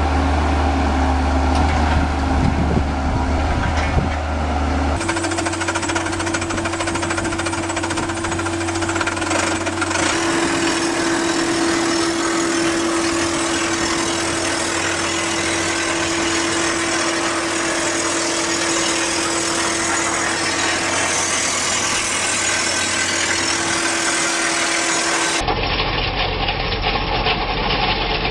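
Heavy machinery running, with steady engine and mechanical noise. A constant whine runs through the middle, and the sound changes abruptly about 5, 10 and 25 seconds in.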